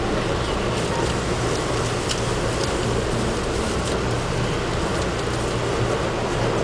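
Steady rumble and hum inside an Amtrak passenger coach rolling along the track at speed, with now and then a faint click.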